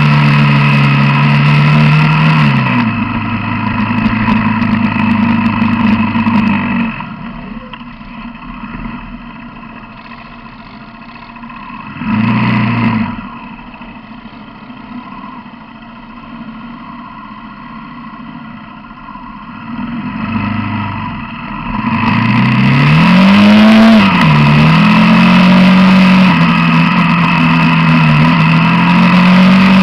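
Quad bike (ATV) engine running along at steady speed, easing off to a much quieter low-revving stretch about a quarter of the way in with a short blip of throttle partway through, then accelerating with rising pitch about three-quarters in and holding higher revs.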